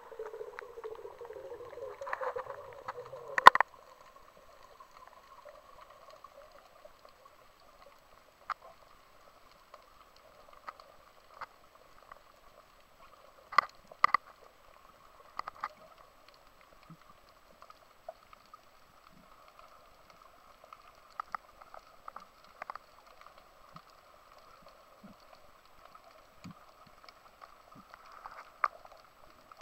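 Underwater ambience picked up by a camera below the surface: a rushing, gurgling water noise for the first few seconds that ends in a sharp knock, then a faint steady hum with scattered sharp clicks.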